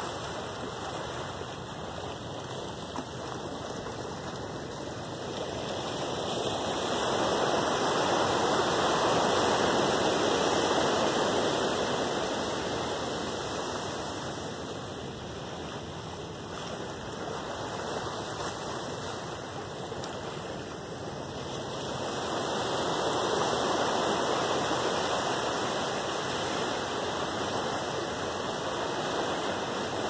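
Small ocean waves breaking and washing up a sandy beach: a steady rush of surf that swells louder twice, about eight seconds in and again past twenty seconds.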